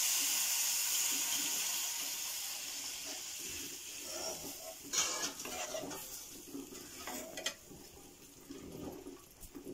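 Milk poured into a hot kadai of ghee-fried grated carrot, sizzling and hissing, the hiss fading over the first three seconds. Then a steel spoon stirs the milky mixture, scraping and knocking against the pan a few times.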